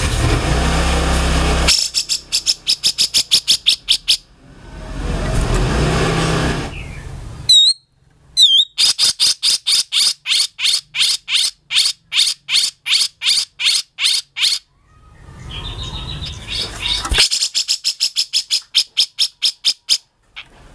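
Grey-cheeked bulbul (cucak jenggot) singing its harsh song: fast runs of rattling high notes, about four to six a second, alternating with rough, rasping stretches, with two short down-slurred whistles about eight seconds in.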